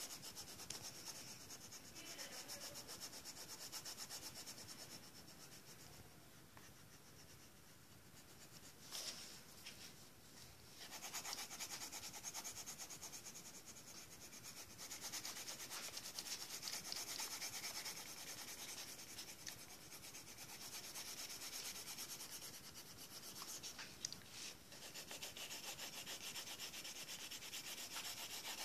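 Coloured pencil scratching across paper in quick back-and-forth shading strokes as an area of a drawing is coloured in, softer for a few seconds near the first third.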